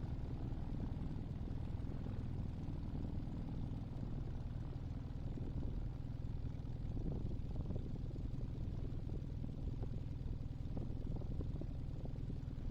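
Small aircraft engine and propeller of a Team Minimax 1100R ultralight running steadily at low power, a low even drone as the plane idles or taxis slowly.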